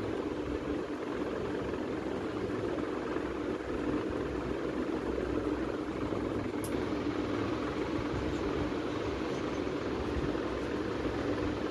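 A steady mechanical hum with a constant low drone and hiss, and a single faint click about halfway through.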